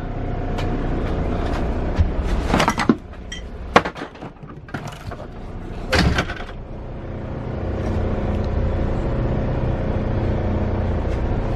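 Steady low hum of the truck's DD15 diesel idling, heard inside the cab. A few knocks and rustles of handling come about two to four seconds in and again near six seconds. The hum drops away for a few seconds in the middle, then builds back.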